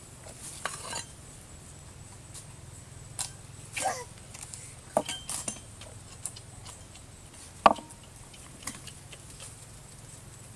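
Scattered knocks and clinks of food preparation: hands moving a whole raw chicken in a black bowl, and a knife chopping into a green coconut. The sharpest knock comes about three-quarters of the way through.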